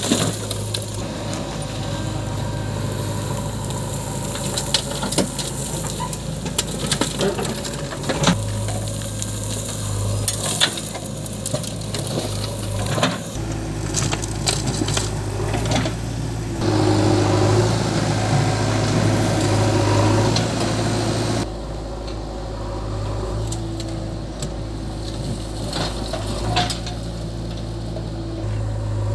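JCB 3DX backhoe loader's diesel engine running steadily while its bucket digs and tips soil and stones into a steel tractor trolley, with scattered clatter and rattling as the clods hit the trolley. The loudest stretch comes a little past the middle.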